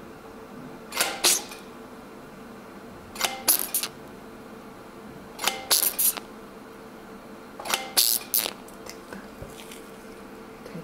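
Potenza RF microneedling handpiece firing its Fusion Tip needle array, a quick cluster of sharp clicks four times, about two seconds apart, over a steady low hum.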